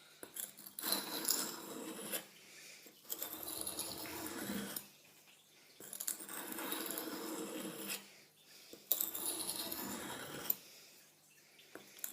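A Buck hunting knife's steel blade drawn in long, light-pressure strokes across a sharpening stone, about five scraping strokes each lasting a second and a half to two seconds with short pauses between, in the fine finishing stage of honing the edge.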